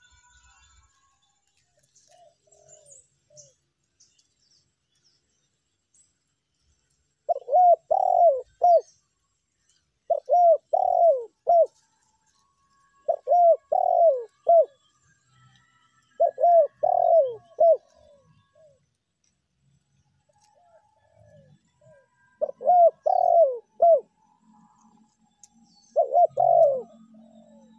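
Spotted dove (tekukur) cooing: six phrases of three or four quick, rounded coos, each phrase about a second long and repeated every few seconds, with a gap in the middle and fainter coos between the phrases.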